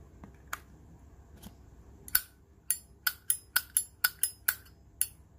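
Sharp metallic clicks of a brushed-chrome Zippo lighter being handled: a few single clacks, then a quick run of about a dozen ringing clicks, roughly four a second, as the lid and flint wheel are worked.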